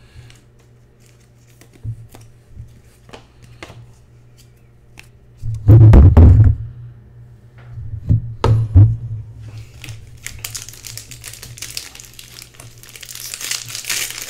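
Light clicks and taps of cards being handled, then two heavy thumps about six and eight and a half seconds in. From about ten seconds on comes the dense crinkling of a foil trading-card pack wrapper being handled.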